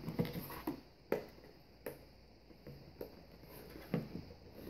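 Scattered light taps, clicks and rustles of a small cardboard product box being handled and opened.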